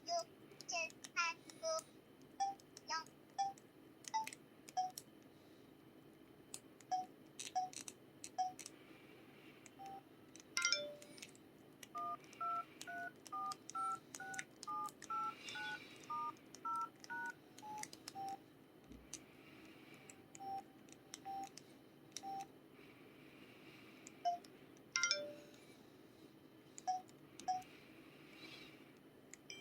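Keypad tones of a Samsung SPH-X7500 mobile phone: short single beeps of its built-in 'tong' button sound as keys are pressed, quickly at first and then more sparsely. In the middle comes a run of about a dozen two-tone DTMF dialing beeps, one per key, before single button beeps return.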